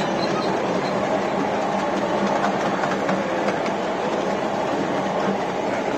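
Ride-on miniature railway train rolling along its track: a steady rumble of wheels on rail, with scattered clicks as the wheels cross the rail joints.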